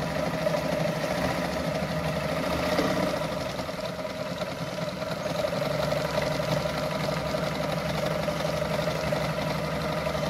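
Brother Pacesetter Super Deluxe electric sewing machine running steadily at speed, motor whirring and needle mechanism clattering as it sews a decorative stitch through denim.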